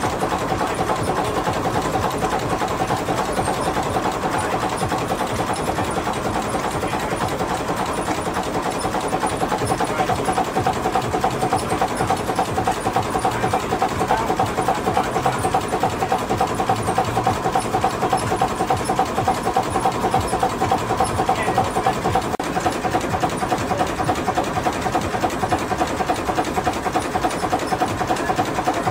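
1929 Gardner three-cylinder diesel marine engine running steadily with a fast, even mechanical clatter.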